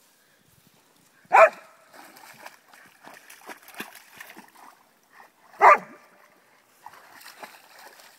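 A dog barks loudly twice, about four seconds apart, with splashing in between and after as it paws and pounces in shallow pond water.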